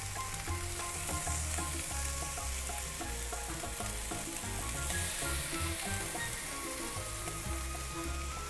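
Squid sizzling steadily on the hot grate of a charcoal kettle grill as pieces are laid down, with soft background music.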